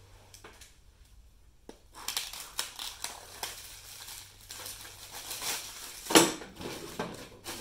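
Plastic shrink-wrap being torn and peeled off a cardboard backing card, a dense run of crinkling and crackling that starts about two seconds in, with one louder sharp rip about six seconds in.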